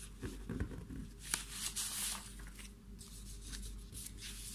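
Sheets of paper rustling and sliding as they are handled, in several short bursts, loudest about two seconds in.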